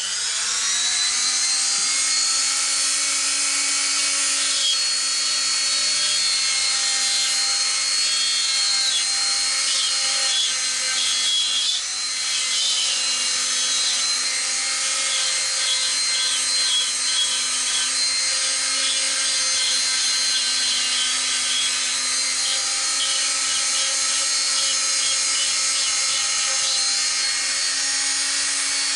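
Old mains rotary tool (Dremel-type) with a fine-grit grinding point starts up with a rising whine, then runs steadily at a high whine. Light, intermittent grinding scratches come as the point deburrs the sharp edges of the steel mill spindle's drive-dog slots.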